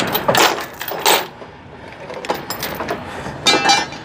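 Metal chain and hardware on a flatbed trailer being handled: a few short knocks and clatters, then a brief ringing metallic clank about three and a half seconds in.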